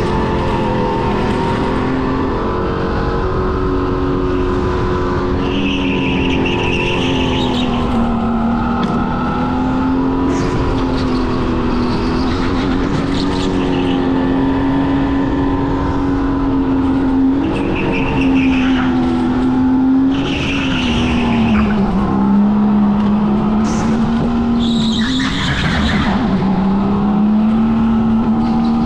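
Go-kart engine running at a nearly steady pitch at racing speed, dipping lower for a few seconds about three-quarters of the way through. Tyres squeal in short bursts several times.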